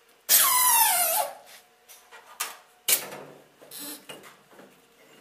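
Benchtop injection molding machine being opened after a shot: a loud squeal falling in pitch for about a second, then two sharp metal clanks and some lighter knocks as the mechanism is worked.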